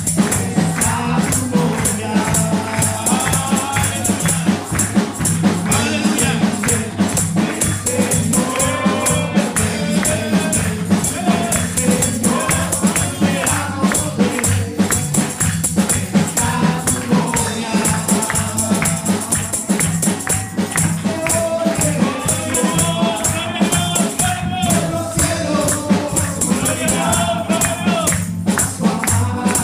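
Live worship band: several voices singing together over a Yamaha Motif keyboard and a drum kit, with a tambourine shaken and struck in steady rhythm.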